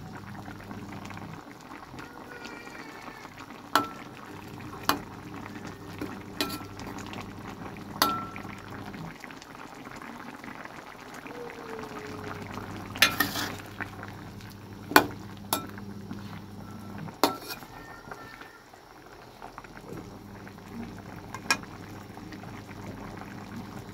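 Chicken and potato curry simmering in a wok, bubbling steadily, with sharp clicks now and then over a low hum.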